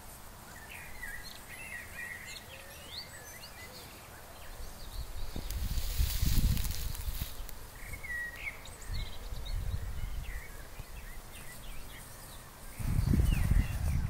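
Small birds chirping and singing in the background, in short rising and falling notes, with low rumbling bursts of wind on the microphone about six seconds in and again near the end.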